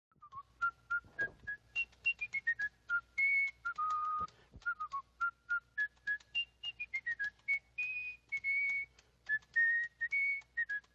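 Whistled melody of short notes hopping up and down in pitch, a few notes a second, with sharp clicks at many of the notes.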